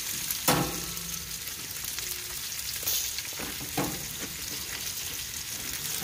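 Fish sizzling steadily as it cooks. A sharp knock comes about half a second in, and two fainter knocks follow near three and four seconds.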